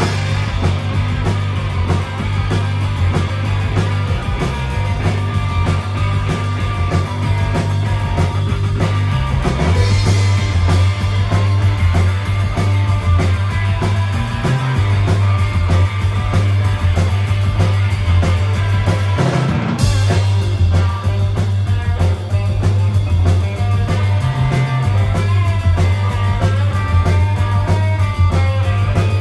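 Live rock band playing loud in a small club: distorted electric guitar over a heavy electric bass line and a drum kit keeping a steady beat, with cymbal crashes about a third of the way in and again about two thirds of the way in.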